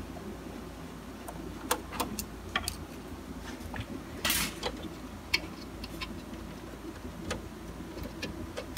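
Scattered small clicks and ticks of a screwdriver working the screws out of a Canon MF643 printer's metal frame, with one brief louder noise about four seconds in.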